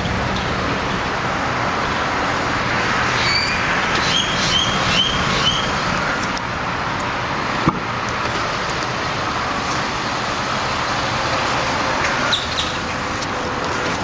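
Dodge Ram pickup's engine idling steadily. A few short high chirps come a few seconds in, and there is a sharp click about halfway.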